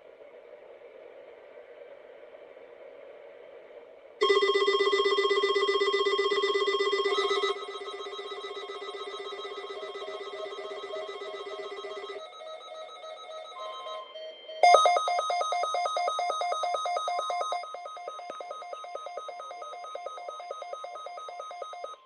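A run of loud electronic tones in several steady stretches, each on a different pitch and lasting a few seconds, starting about four seconds in. The later stretches pulse in a fast, ringing trill.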